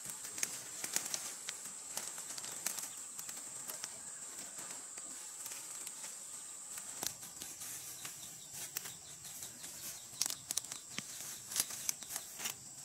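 Cassava leaves and stalks rustling and crackling as the plants are handled and pulled up by hand, with sharper snaps near the end. A steady high-pitched whine runs underneath.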